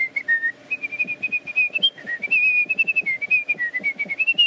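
A tune whistled in quick, clear notes that step up and down in pitch, with a faint regular patter underneath.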